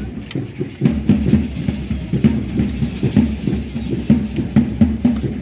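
Matachines dance: a drum beating an uneven rhythm of several strikes a second, with the dancers' stamping feet and shaken rattles clicking over it.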